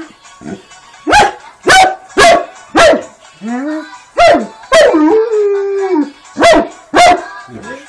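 Moscow Watchdog barking loudly in short strokes, about eight barks, broken by howls: a short rising howl about three and a half seconds in and a long, steady howl about five seconds in. It is the dog's "singing".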